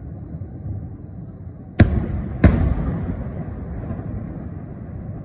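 Two aerial firework shells bursting with sharp bangs about two seconds in, well under a second apart, each followed by an echo that dies away, over a steady low rumble.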